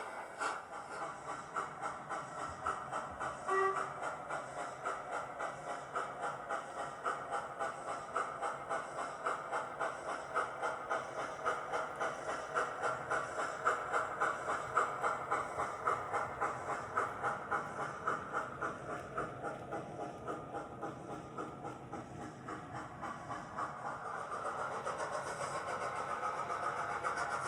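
Model LMS Black 5 steam locomotive's DCC sound decoder playing steady, rhythmic exhaust chuffs as the model runs on the layout.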